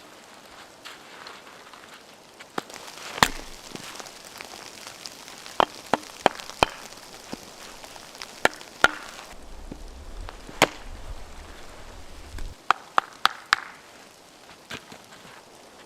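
Wood being chopped: a series of sharp blows at irregular intervals, some in quick runs of three or four, the hardest about three seconds in.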